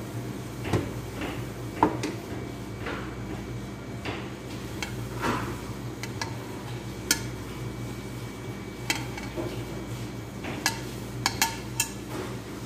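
A metal sieve and utensils clinking and tapping against a stainless steel mixing bowl while flour is sifted into cake batter. The sharp clinks come scattered, with a quick run of them near the end.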